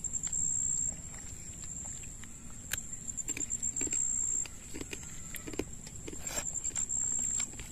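Insects buzzing steadily at a high pitch, swelling louder three times (at the start, around three to four seconds in, and near the end), with close chewing and mouth sounds of someone eating rice and curry by hand.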